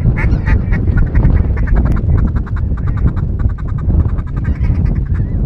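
Ducks quacking in a quick run of short, repeated calls over a steady low rumble.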